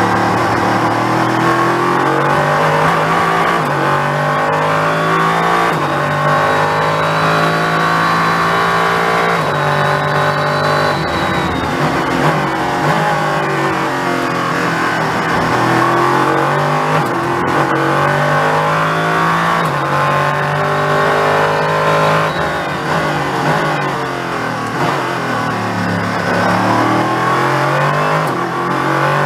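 Ligier JS P320 LMP3 prototype's Nissan V8, heard from inside the cockpit, pulling hard through the gears with stepped upshifts. It drops back for braking and downshifts about eleven and twenty-three seconds in. A faint high whine rides along during the first long run of acceleration.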